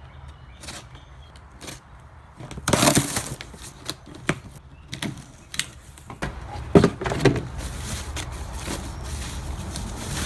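Handling noises of a package being opened: rustling of cardboard and wrapping, loudest about three seconds in, with scattered clicks and knocks and one sharper knock near the seven-second mark.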